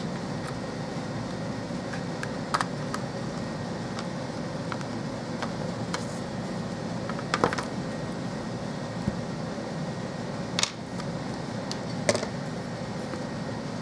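Scattered sharp clicks and taps of small tools and parts being handled during a tablet repair, about five in all, over a steady room hum.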